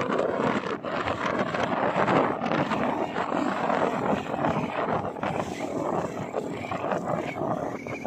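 Rushing, buffeting wind and road noise from riding in traffic, with the running engines of the motorcycles and scooters around. The noise surges and dips without a clear engine pitch.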